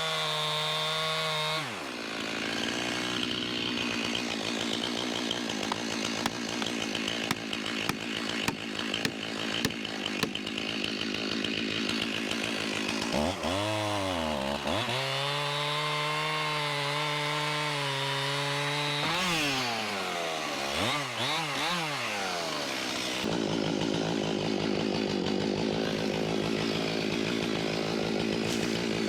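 Stihl chainsaw running at high throttle, cutting wood. Its engine note drops and revs back up a few times around the middle, then settles back into a steady cut.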